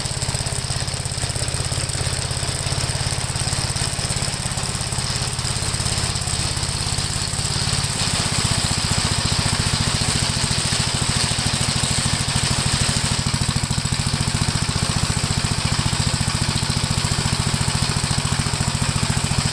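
Gravely tractor engine running steadily while driving its sickle bar mower attachment. About eight seconds in, the engine note shifts and gets slightly louder.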